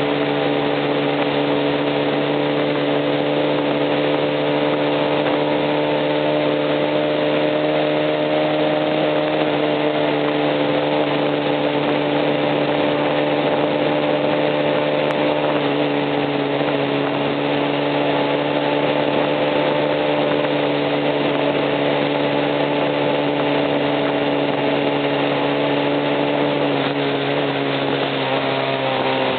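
Honda CB50's single-cylinder four-stroke engine running steadily at a constant speed, its pitch falling slightly near the end. The engine is making an abnormal noise, the fault the owner is recording.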